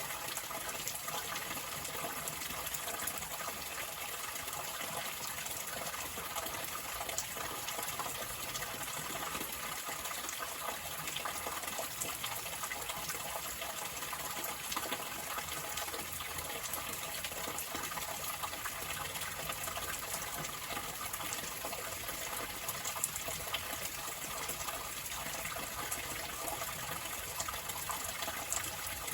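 Water running in a steady, unbroken rush.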